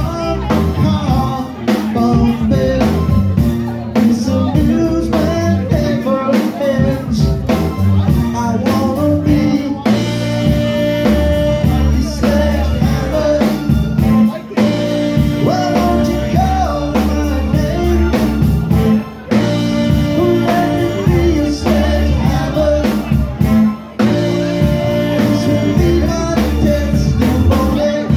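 Live rock band playing a song with a male lead vocal over drum kit, electric guitar, bass and keyboards.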